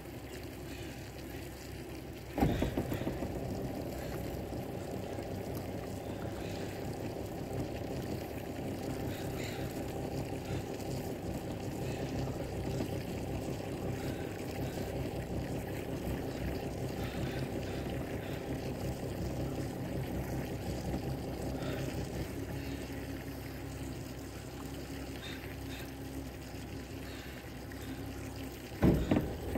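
Steady low rumble of an idling boat motor with water sloshing, after a sharp knock about two seconds in; another knock comes near the end.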